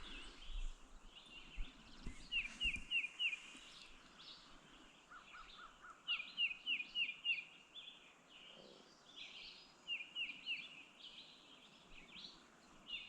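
Songbirds singing: repeated series of four or five quick downslurred notes, several times over, with a lower series of short notes about midway.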